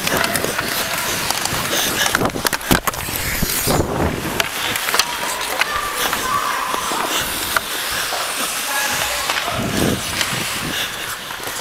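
Ice hockey skate blades scraping and carving on rink ice, a steady rushing hiss, with many sharp clacks of sticks and puck scattered through it.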